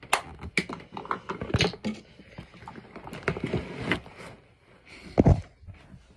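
Close handling noise: quick clicks, clatter and rustling of small objects being moved, with one heavy thump about five seconds in.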